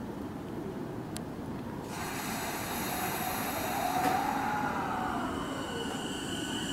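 E233-series electric train moving along the platform over a low rumble of wheels on rail. Its motors whine in a tone that rises and then falls in pitch, then settle into steady high tones near the end.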